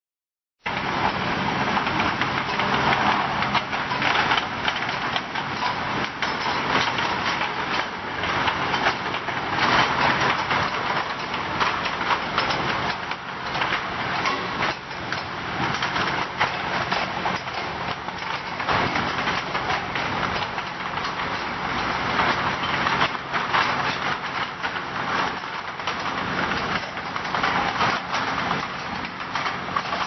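CX-CXP ultrasonic bottle washing machine running, a steady motor hum under a dense, continuous clatter of small glass bottles being carried through its star wheel and guides. The noise comes in suddenly about half a second in.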